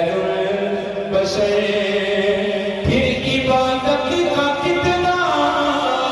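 A man's voice singing a devotional chant in long held notes, with the melody stepping to a new note about a second in, near three seconds and about five seconds in.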